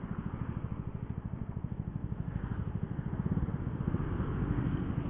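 Yamaha Jupiter Z1's small single-cylinder four-stroke engine running at low speed with an even, low pulsing as the bike rolls to a stop at the curb and drops to idle in neutral. It is heard through a helmet intercom microphone.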